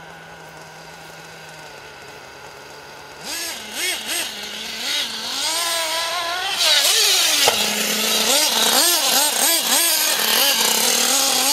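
Nitro RC buggy's small glow engine idling, then blipped up and down in short bursts from about three seconds in. From about halfway on it runs at high revs, its pitch rising and falling quickly as the throttle is worked.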